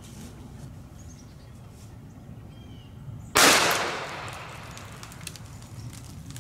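A single gunshot from a hunting gun, a sharp report about three and a half seconds in that rings out and fades over about a second.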